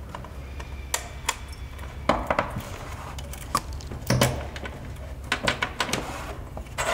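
Scattered clicks and light knocks of a metal security key turning in a kiosk enclosure's lock and of the enclosure and its hardware being handled on a tabletop, over a low steady hum.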